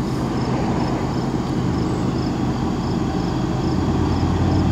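Distant diesel locomotive working hard under heavy throttle as it climbs a grade, a steady low drone that slowly grows louder as the train approaches. Insects chirp in a regular pattern throughout.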